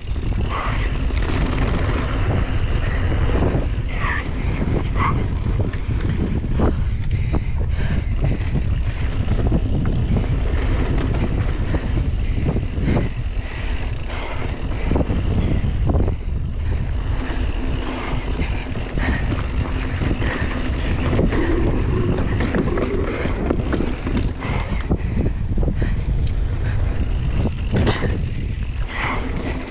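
Mountain bike riding a dirt singletrack: steady wind rumble on the microphone with tyre noise, and scattered knocks and rattles from the bike over bumps.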